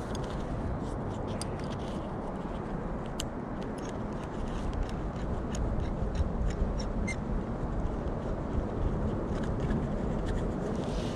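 Rustling of a nylon treestand safety-harness tree strap being handled and pulled through its metal ring, with scattered small clicks, over a steady low rumble.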